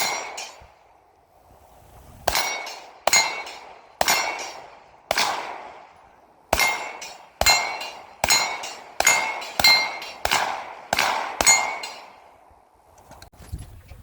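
About a dozen gunshots fired at an uneven pace, each followed by a metallic ring that dies away over about a second, typical of hits on steel targets. There is a pause after the first shot, then the rest come in quick succession.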